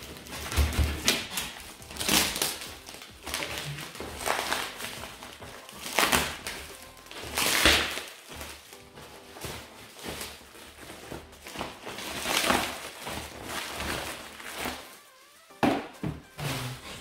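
Plastic packaging wrap crinkling and tearing in repeated loud bursts as it is pulled off a cardboard box, with a short thud near the end and faint background music under it.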